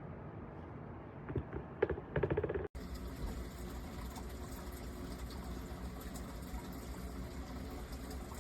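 Small humidifier running with a steady low hum and hiss. A few short sharp sounds come just before an abrupt cut about three seconds in, after which the hum and hiss go on steadily.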